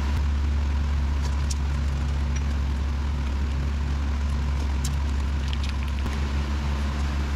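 A steady low hum, with a few faint crinkles and ticks as blue painter's tape is pressed onto the engine by hand.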